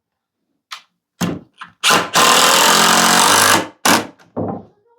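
A handheld power tool runs for about two seconds, with a few sharp knocks and clicks before and after it.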